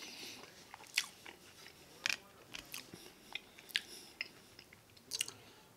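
Close-up mouth sounds of a person chewing a mouthful of Mexican rice and beans, with sharp wet clicks and smacks about once a second.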